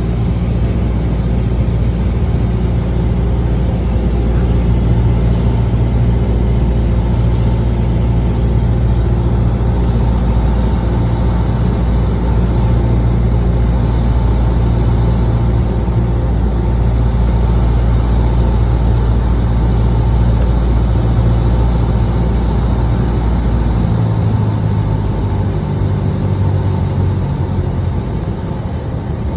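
Cessna 172's piston engine and propeller droning steadily, heard from inside the cockpit with wind noise, on final approach to land. About four-fifths of the way through the deep drone changes and eases off slightly as the throttle is brought back.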